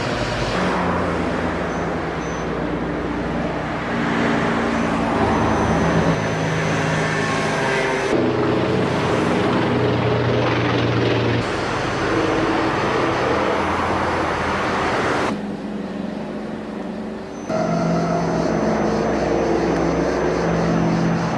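Propeller aircraft engines droning, their pitch shifting, with several abrupt jumps in the sound and a quieter stretch late on.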